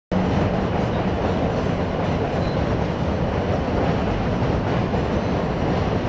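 Elevated subway train passing on its tracks: a steady, loud rumble.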